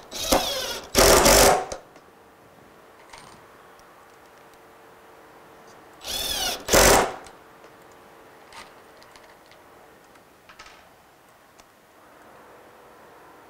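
Cordless impact driver driving two screws into a wooden drawer side, one right at the start and one about six seconds in: each time a short rising whine as it spins up, then a loud hammering rattle as the screw seats. A few faint clicks of handling between and after.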